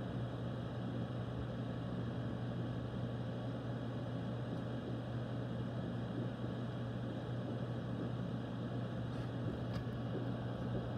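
Steady low hum over an even hiss, the constant background drone of the room, with a couple of faint clicks near the end.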